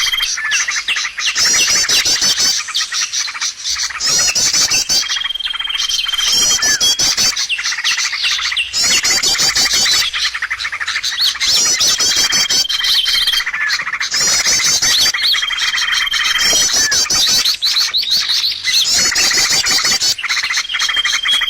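Bird lure call (suara pikat) of dense, rapid chirping and trilled phrases that repeat every couple of seconds. Every few seconds a level whistle note is held for about a second.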